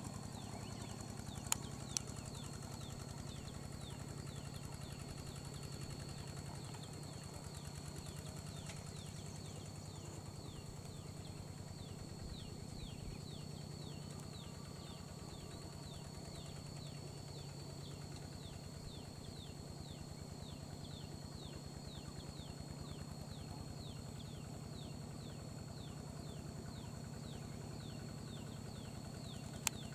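Faint, steady running of a distant two-wheel walking tractor's small engine. Over it, a short falling chirp repeats about twice a second, along with a steady high whine.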